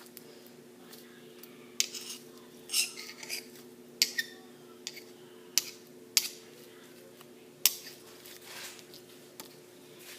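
Slime being played with: a series of sharp clicks and crackly pops at irregular intervals, about a dozen in all, over a faint steady hum.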